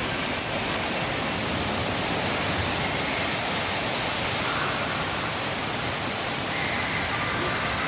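Steady rushing water at an indoor waterpark, an even, unbroken noise.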